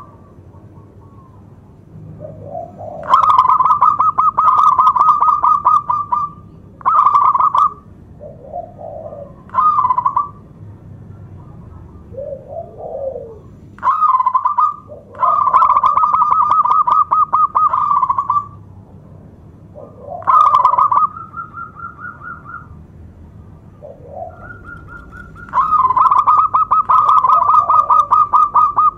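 Zebra dove (local perkutut) singing its cooing song: soft low notes lead into long runs of rapid, repeated cooing notes, three runs of about three seconds each, with shorter single coos between.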